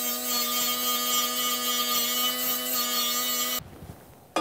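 Grinder running with a steady whine, grinding down welds; it cuts off suddenly about three and a half seconds in.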